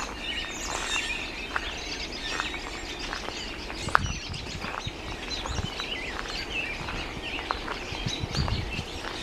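Many wild birds chirping and singing at once, a dense chorus of short calls and trills. A few soft low thumps come through, with one sharper knock about four seconds in.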